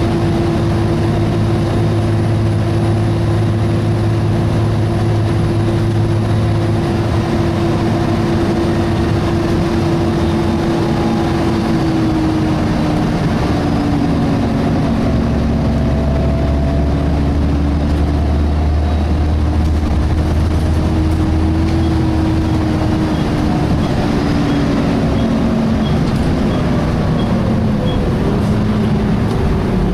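Volvo B7TL double-decker bus heard from inside, its engine running with a strong steady whine from the cooling fan. About halfway through the whine starts to waver, and it falls in pitch near the end as the engine note drops, with a faint regular ticking of about one and a half ticks a second in the last few seconds.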